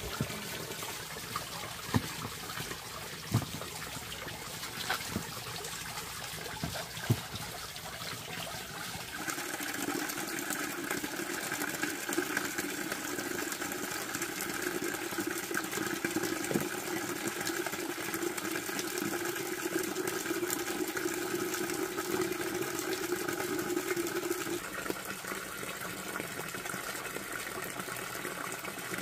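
Water running steadily, with a few sharp knocks in the first seven seconds. About nine seconds in the flow gets louder and fuller, then eases back a few seconds before the end.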